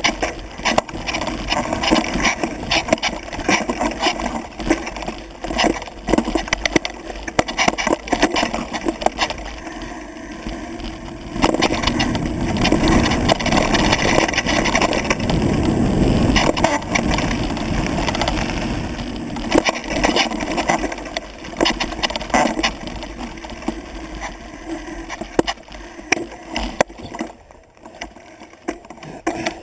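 Mountain bike clattering and rattling over a rough forest trail, with many sharp knocks. A low rumble swells through the middle stretch, and the sound dies down near the end.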